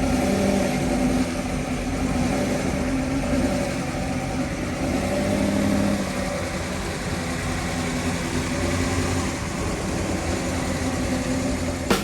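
Car engine idling, its pitch shifting up and down a few times.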